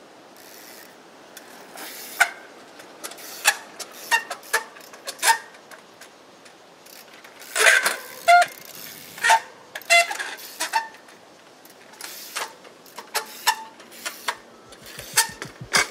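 Trials bike being ridden and hopped on concrete blocks: an irregular string of sharp clicks and knocks from the bike, with a few short squeaks among them.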